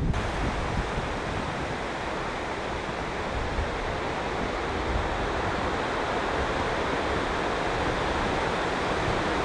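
Steady, even outdoor hiss with a low wind rumble on the microphone.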